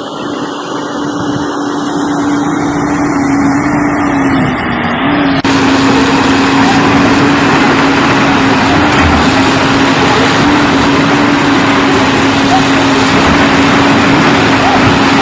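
Excavator engine running steadily, with a sustained whine and a dense mechanical noise that grows louder over the first few seconds and changes abruptly about five seconds in, as the machine tracks along.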